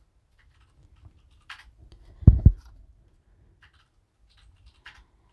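Objects being handled on a work surface: a few light clicks and rustles, and a dull double thump a little after two seconds in, the loudest sound.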